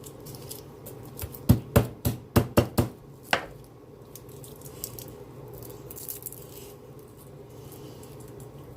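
Kitchen utensils knocking during food preparation: a quick run of about eight sharp knocks in the first few seconds, then only a low steady room hum.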